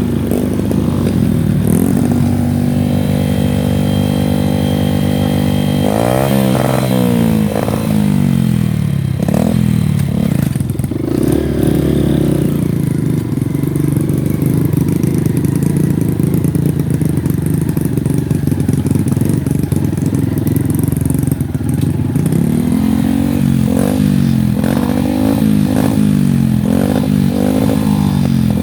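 Honda Win motorcycle engine running while ridden over a rough trail. It holds steady revs at first, then the revs rise and fall, and near the end they swell and drop again and again in quick succession.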